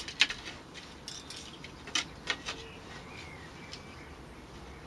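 Wire being wrapped round a bamboo cross and handled against the canes: scattered sharp clicks and light knocks, a couple near the start and a small cluster about two seconds in.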